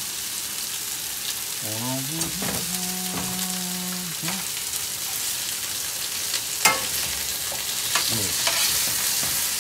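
Skin-on chicken thigh pieces sizzling steadily in very hot oil in a stainless steel skillet, browning. A metal spoon clinks and scrapes against the pan as the pieces are turned, with one sharp clack about two-thirds of the way through.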